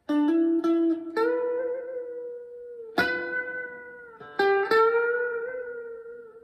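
Chapman ML1 Strat-style electric guitar played clean through a Blackstar HT1-R amp: a short phrase of single picked notes, a few quick ones and then long held notes with vibrato.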